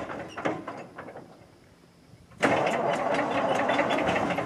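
Old Caterpillar D9 bulldozer's engine: loud, crackly running noise fades away over the first two seconds, then the engine comes back in suddenly and loudly about two and a half seconds in and keeps running.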